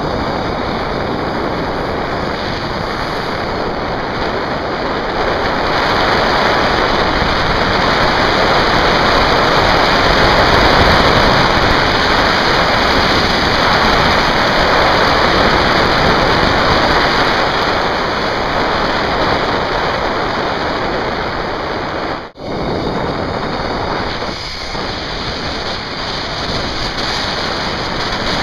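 Wind rushing over the microphone and the zipline trolley running along the steel cable during a ride: a steady, loud rushing that swells in the middle, with a brief dropout about three-quarters of the way through.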